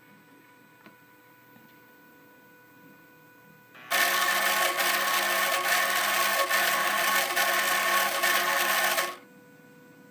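Homemade mini drill's small motor running loudly for about five seconds with a steady whine, starting about four seconds in and cutting off suddenly.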